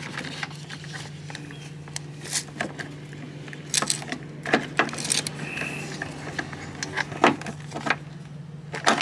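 Scattered metal clicks and light knocks from a clutch master cylinder and its hydraulic line being worked into position in a pickup's engine bay, over a steady low hum.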